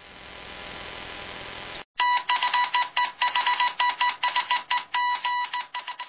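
Title-card sound effects: a hiss swells up for about two seconds and breaks off, then a rapid run of clicks with short high beeps follows, about five a second.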